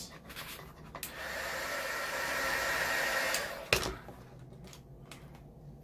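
Electric heat gun blowing steadily for about three seconds with a faint high whine, softening vinyl wrap so it can be stretched around a corner. A single sharp click as it stops.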